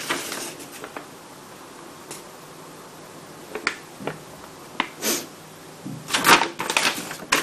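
Large paper plan sheet rustling and crinkling as it is handled and turned over: a rustle at the start, a few short crackles through the middle, and a denser, louder stretch of rustling near the end.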